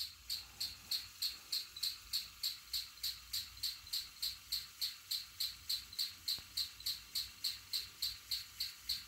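Canarm Twister ceiling fan running on medium speed while set on the floor, with a short high squeak about three times a second, once per turn, where it rubs on its housing, over a faint motor hum.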